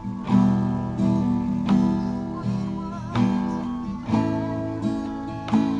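Instrumental acoustic guitar music: chords strummed slowly, each left to ring before the next.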